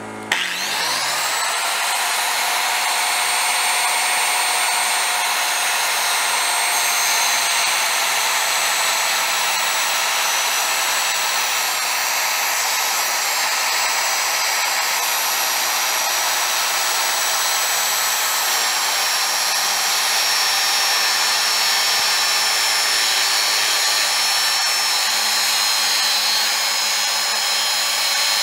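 Circular saw starting up, its whine rising to speed in the first second, then running steadily as it cuts through a thick red cedar stair stringer, the pitch sagging slightly at times under load.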